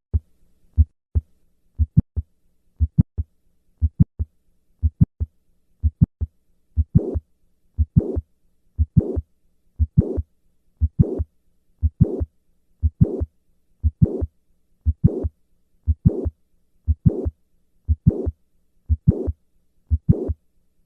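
Heart sounds of a patient with mitral valve prolapse, about one beat a second. The first six beats are plain lub-dub pairs. From about seven seconds in, each beat carries the click-murmur complex of mitral valve prolapse, a murmur between the heart sounds.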